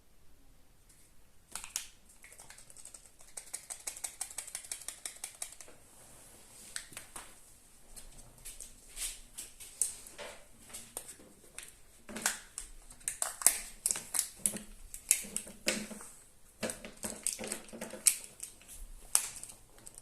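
A Kinder Surprise egg being handled and opened: foil wrapper crinkling and plastic toy capsule clicking and snapping, in irregular runs of sharp clicks. There is a rapid crackling stretch early on and denser snapping in the second half.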